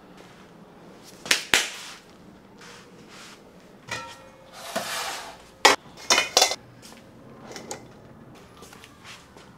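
A stainless steel mixing bowl and mesh sieve clattering as they are handled and set down on a counter. There are sharp metal knocks about a second in and again around six seconds, with a brief rustle between them.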